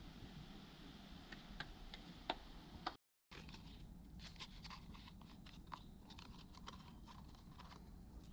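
A few sharp wooden knocks as a roof board is handled. Then, after a short break, a quick run of small clicks and scrapes as wood is worked by hand on a fallen log.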